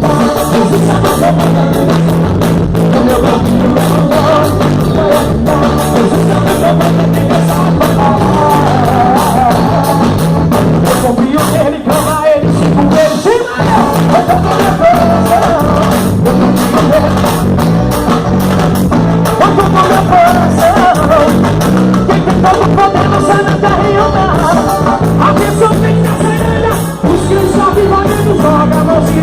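Gospel forró band playing, with a steady bass and drum beat under a bending melody line, and singing.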